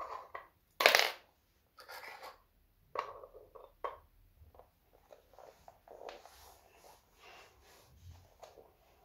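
Hard plastic Playmobil toy pieces being handled and set down: a series of small clicks, knocks and rustles, with a louder scraping rustle about a second in.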